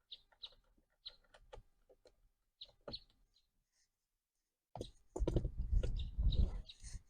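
Hand tools working the steering-wheel airbag module's 8mm screws: a run of light, sparse clicks, then about five seconds in a louder stretch of clattering and rubbing from handling the tool and parts.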